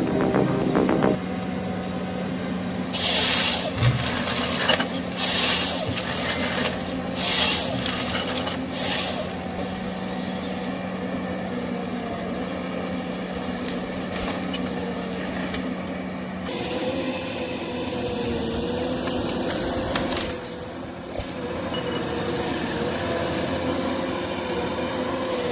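A heavy machine's engine running steadily, with four short, loud hissing bursts a few seconds into the sound. After about sixteen seconds the hum gives way to a wavering, higher-pitched drone.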